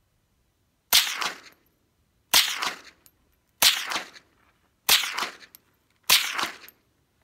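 Five suppressed rifle shots from a Ruger 10/22 .22 LR with a homemade cup-baffle suppressor, firing Federal Champion 40-grain rounds at 1240 feet per second, a supersonic load. The shots come evenly, about one every 1.3 seconds, each sharp and dying away within half a second.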